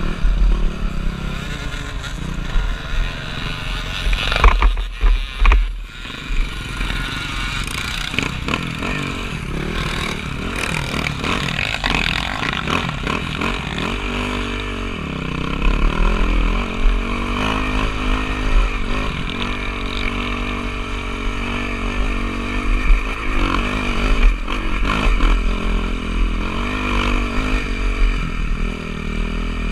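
Dirt bike engines running off-road, with the revs rising and falling again and again. About four to six seconds in there is a rougher stretch with sharp clattering peaks.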